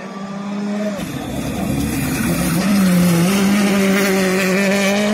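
R5 rally car's turbocharged four-cylinder engine at high revs as it approaches and slides past on gravel, getting louder. The engine note drops briefly twice on gear changes, about one and two seconds in, then holds high, over the hiss and spray of gravel thrown up by the tyres.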